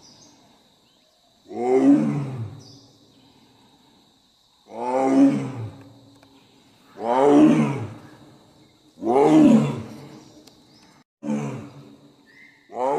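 Bengal tigress calling, a series of about six loud roars spaced roughly two seconds apart.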